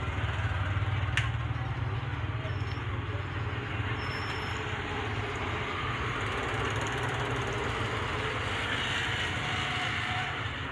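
Steady low droning hum with an even hiss, and a single faint click about a second in.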